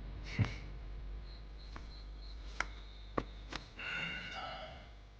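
A handful of sharp clicks and knocks, the loudest about half a second in and four more spread over the next three seconds, with a brief ringing tone near the end. Faint high chirping repeats at even intervals in the background.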